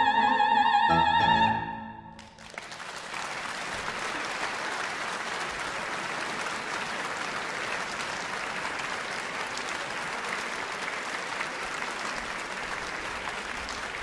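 A mezzo-soprano's final held high note with wide vibrato, ending about a second and a half in. After a brief pause, a concert-hall audience breaks into steady applause.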